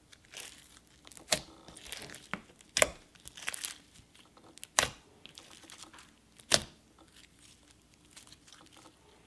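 Clear pink glitter slime full of foam beads being stretched and squeezed by hand: a crackly, crunchy rustle of the beads with four sharp, loud clicks from the slime, spaced about one and a half to two seconds apart.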